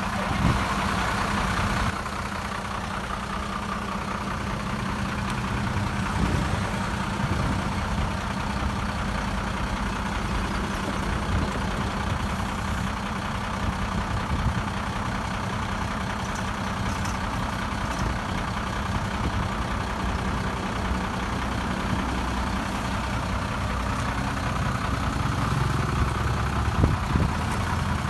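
Heavy diesel engine of earthmoving machinery running steadily at a low, even pitch, with a slight drop in level about two seconds in.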